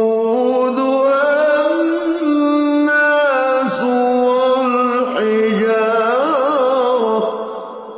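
Male Qur'an reciter chanting in melodic tajweed style: long drawn-out notes with small steps in pitch and a trembling ornament near the end. Then the voice stops and its echo dies away.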